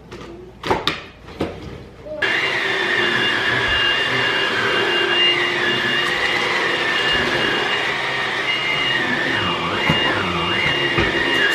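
A new cordless vacuum cleaner switched on about two seconds in after a few handling clicks, its motor running with a steady high whine that wavers in pitch near the end.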